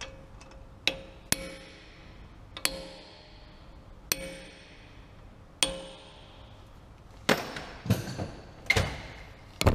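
Hammer striking metal about nine times, each blow ringing briefly, about a second and a half apart at first and coming quicker near the end: staking the new CV axle nut's locking collar into the groove of the axle.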